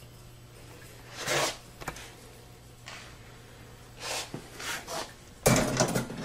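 Used automatic-transmission clutch plates handled in the hands, giving a few short scrapes and rubs, with louder handling noise near the end. A faint low hum runs underneath for most of it.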